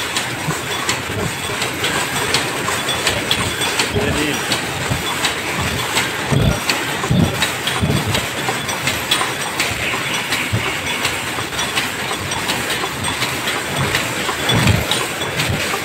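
Paper cup forming machines running at high speed: a steady mechanical clatter of many rapid clicks and knocks from the working mechanisms.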